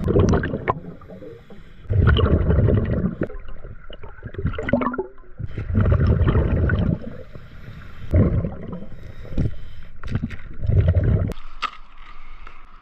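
Scuba diver breathing through a regulator underwater: bursts of exhaled bubbles rumble and gurgle past the mask every couple of seconds, with quieter breaths between.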